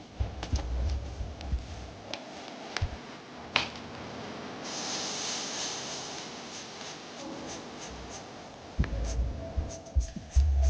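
Hands handling the phone's box and packaging: scattered light taps and clicks, with a steady hissing rub lasting about four seconds in the middle, like film or a lid sliding.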